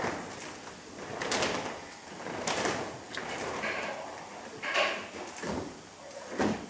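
A large cloth flag swung through the air: a series of swishing, flapping sweeps about a second apart, with a sharp knock near the end.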